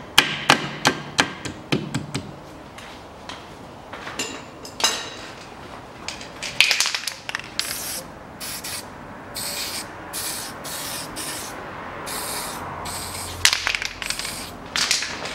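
Aerosol spray can being shaken, its mixing ball rattling at about four clicks a second for two seconds. Then a string of short hissing spray bursts, one of them longer, as the can coats the wheel hub.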